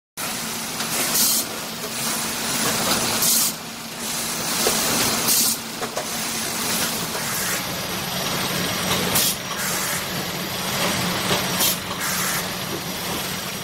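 Packaging-line machinery running with a steady hum. Short bursts of compressed-air hiss come every two seconds or so, as the ejector-type vacuum gripper picks up and releases bags.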